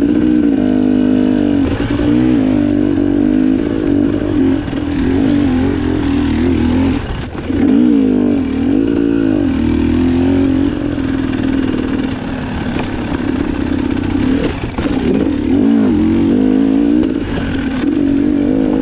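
Dirt bike engine revving up and down continuously while being ridden along a trail, its pitch rising and falling with each burst of throttle.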